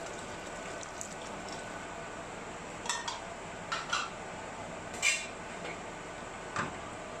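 Coconut milk poured into a steel pot of simmering black chickpea curry, then a wooden spoon stirring it, with several short clinks and knocks against the steel pot over a steady hiss.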